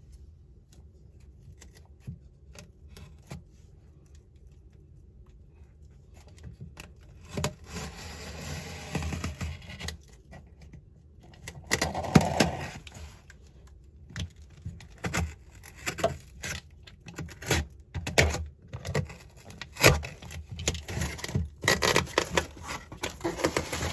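A 3D-printed utility knife slicing and scraping through a cardboard box in several drawn-out strokes, with sharp clicks and knocks of handling between them. The cutting begins about seven seconds in.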